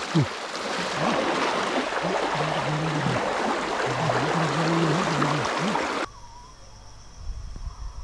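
River water splashing and rushing around legs wading thigh-deep through a fast, muddy current. About six seconds in it cuts off suddenly to a quieter scene with a steady high insect buzz and a few low knocks near the end.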